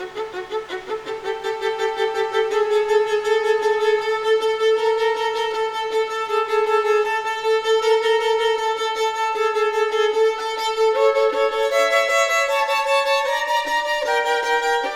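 Solo violin playing a long, slowly swelling held note with vibrato. About two-thirds of the way through it moves into a quicker line of shorter notes that step downward.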